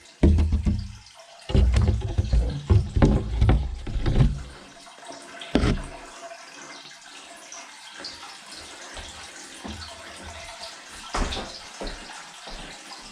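Water running steadily. Heavy low thuds and bumps come in the first few seconds, and two sharp knocks come later.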